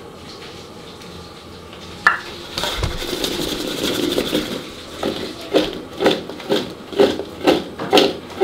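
Small cut pieces of fuchka dough tossed in a metal bowl to coat them with refined oil, the pieces rattling and thudding back against the bowl. It starts sharply about two seconds in and settles into a regular toss about twice a second.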